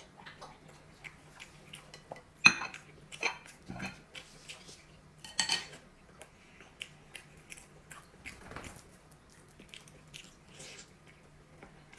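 Eating noodles from a glass bowl with chopsticks: short slurps and chewing, with chopsticks clicking against the glass now and then, the sharpest click about two and a half seconds in.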